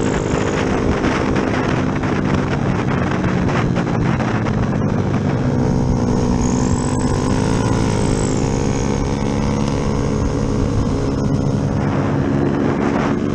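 Yamaha Jupiter MX single-cylinder four-stroke underbone engine, bored out with a 72 mm piston, running under way, its note falling and rising as the throttle changes, with wind noise on the microphone.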